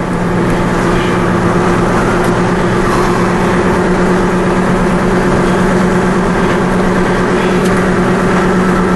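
Chase truck's engine running, heard from inside the cab: a steady low hum over an even rushing noise.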